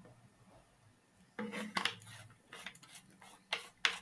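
A few scattered sharp clicks and clinks, about five in the last two and a half seconds, faint through a video-call line.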